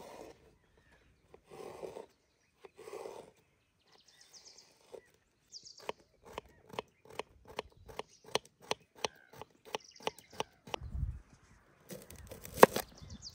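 Paring knife cutting a cucumber on a wooden cutting board: a few slow slicing strokes, then quick dicing taps of the blade on the board, about three a second. Near the end comes a louder crunch of a knife cutting into a red onion.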